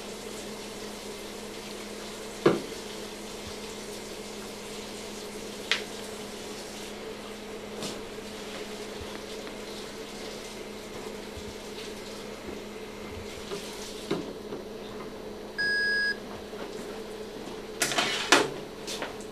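A steady electrical hum runs throughout, broken by a few sharp knocks and clatters of equipment being handled. There is a cluster of clatters near the end. About three-quarters of the way through, the patient monitor gives a single half-second electronic beep.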